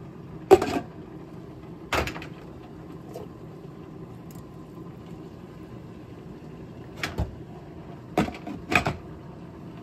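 Metal spatula and pan knocking against a nonstick frying pan of cubed raw pork, a few sharp separate clacks. Near the end, two quick clinks as a glass pot lid is set onto the pan.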